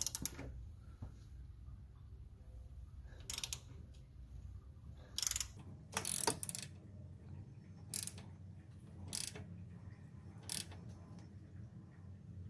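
Hand ratchet on the crankshaft bolt of a Ford Coyote V8, clicking in about six short bursts as the crank is turned over by hand to bring the keyway round to 12 o'clock for setting the cam timing. A steady low hum runs underneath.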